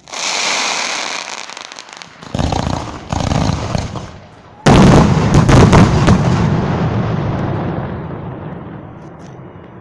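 Aerial fireworks going off. A hissing launch opens it, heavy booms come about two and three seconds in, and the loudest bang follows about five seconds in. Crackling comes after it, then a long echo fading away.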